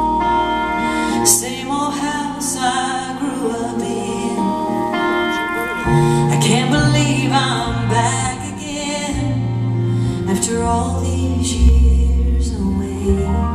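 Female lead vocalist singing a slow country ballad with a live band: steady bass notes, keyboard and drums with a few cymbal hits.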